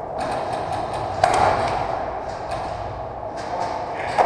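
Airsoft guns firing in a large echoing hall: an irregular string of sharp pops and clicks, a few a second, with a louder crack about a second in and another near the end.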